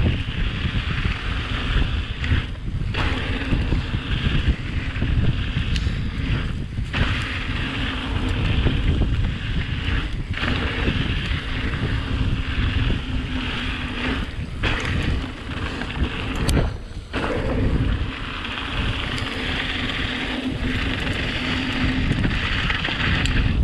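Wind buffeting the camera microphone over the rumble of a mountain bike's tyres rolling fast down a dirt singletrack, with a few brief lulls.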